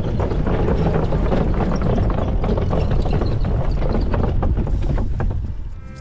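Wind buffeting a bike-mounted camera's microphone while the bicycle's tyres clatter over the planks of a wooden boardwalk in a quick run of knocks. The noise eases near the end as the bike rolls onto a smooth path.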